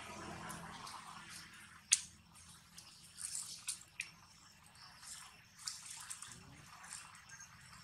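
Long-tailed macaque chewing food: scattered short, wet mouth clicks and smacks, the sharpest about two seconds in.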